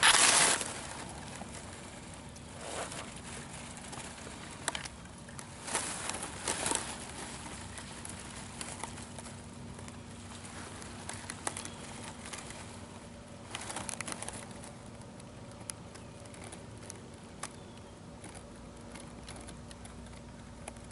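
Dry grass and stems rustling and crackling: a loud rustle at the start as the camera is pushed down into the grass, then scattered brief rustles over a faint steady hum.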